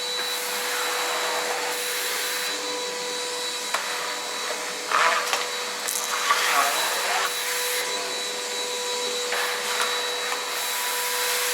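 Milwaukee M18 Fuel cordless wet/dry vacuum running on its low setting: a steady motor whine over rushing air, with a few brief louder rushes about five and seven seconds in as it picks up debris.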